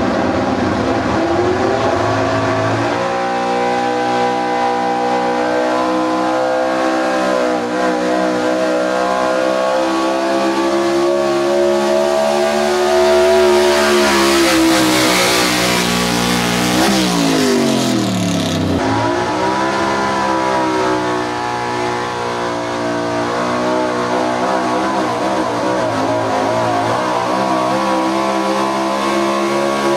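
Pickup truck engine at full throttle pulling a weight-transfer sled, its revs climbing a few seconds in and holding high. About 17 seconds in the revs fall steeply, then climb again and hold.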